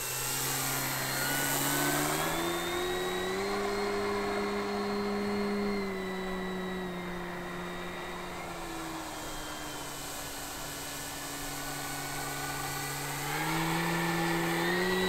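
Electric motor and propeller of an E-flite Carbon-Z Cessna 150 Aerobat RC plane in flight, a steady humming buzz. Its pitch rises about two seconds in and holds, sinks slowly from about six seconds, then climbs again near the end.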